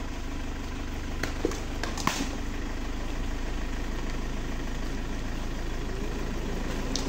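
A vehicle engine idling steadily, with a low, evenly pulsing rumble. A few short knocks come about a second and two seconds in.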